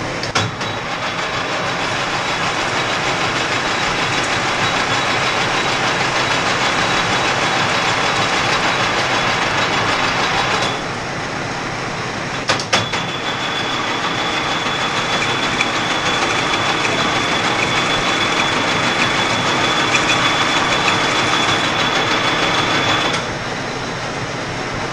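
A 1940s engine lathe running as it cuts inside a brass pipe ring. It makes two cutting runs of about ten seconds each, each starting with a click. The second run carries a thin, steady high whine.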